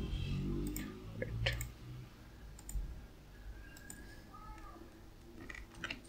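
Scattered clicks of a computer mouse and keyboard: a handful of separate, quiet clicks spaced about a second apart, with a close pair near the end.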